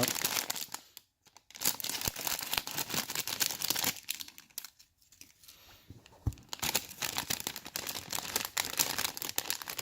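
Thin plastic bag around a model kit's parts being crinkled and torn open, a dense crackling that pauses briefly about a second in and goes quieter for a couple of seconds in the middle.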